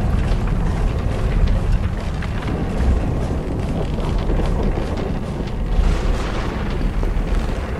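A windmill's big cogged gear wheels turning, giving a heavy steady rumble with a faint fine clatter of the cogs.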